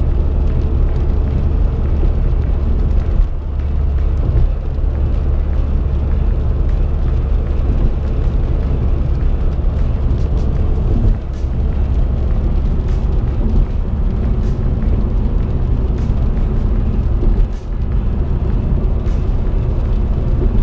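Steady low rumble of road and engine noise inside a moving car's cabin, driving at highway speed.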